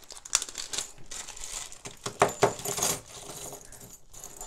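Small metal earrings poured from a plastic bag onto a tabletop, clattering and clinking, with the loudest clatter about two seconds in. The plastic bag crinkles as it is handled.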